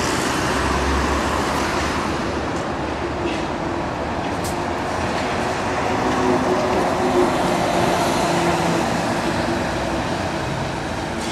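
Street traffic noise with an electric trolleybus passing close and pulling away. A steady hum from the trolleybus, with tyre noise, is loudest about six to eight seconds in.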